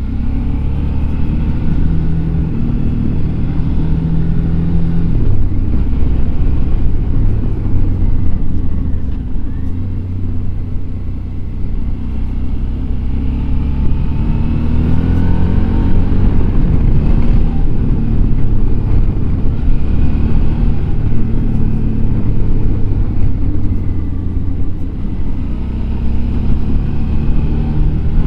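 Suzuki V-Strom DL650 XT's V-twin engine running on the move, its pitch rising and falling again and again as the revs change.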